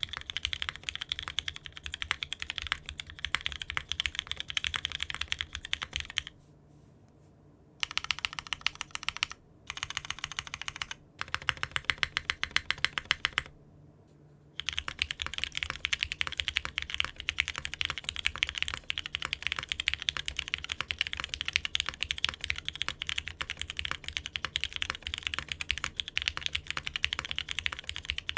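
Mechanical keyboard fitted with Cherry-profile keycaps being typed on fast in a sound test, a dense stream of key clacks. Typing stops briefly a few times, and the tone of the clacking changes between stretches.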